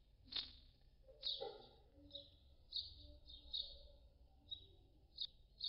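House martins calling from their mud nests: a series of about nine short, high chirps, unevenly spaced.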